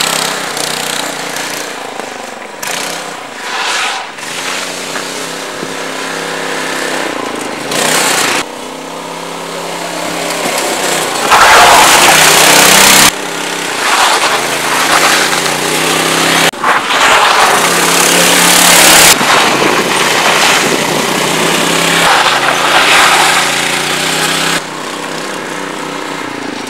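FunBikes GT80 Trail Blazer buggy's 200cc engine running as it drives, its pitch rising and falling with the throttle, heard in several passes that cut abruptly from one to the next; loudest about halfway through.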